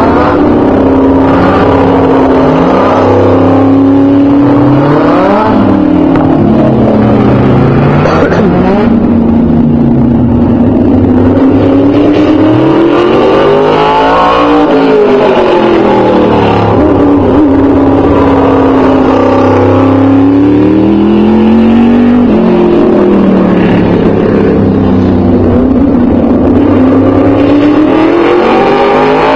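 An open-wheel modified race car's engine running hard alone on a short oval track, loud throughout. The engine note climbs and falls again and again as the car accelerates down the straights and lifts for the turns, with higher peaks about halfway through and again near the end.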